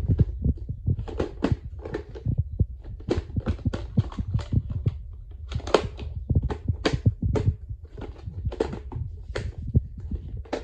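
Handling noise: a quick, uneven run of knocks and clacks over a low rumble, as VHS tapes in their cases are picked up and moved in front of a handheld camera.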